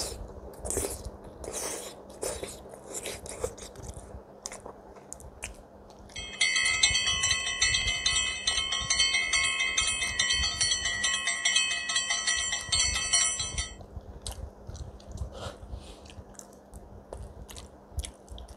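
Eating sounds: a fork clicking on a glass plate, and biting and chewing. About six seconds in, a bright, steady chime-like ringing starts over it. It is the loudest sound here, holds for about seven seconds, then stops.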